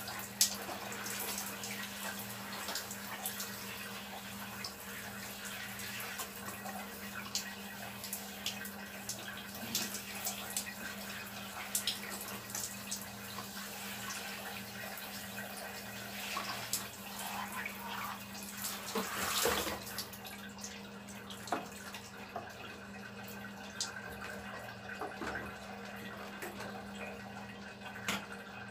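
Handheld shower spraying water over a person, with splashing and scattered spatters and drips against a steady low hum. The hiss of the spray thins out about two-thirds of the way through.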